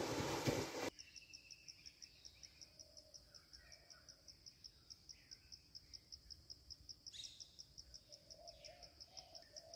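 Water churning for about the first second as a wading rhinoceros splashes across a river. Then faint insect chirping in a fast, even pulse, with scattered bird calls and a run of low repeated notes near the end.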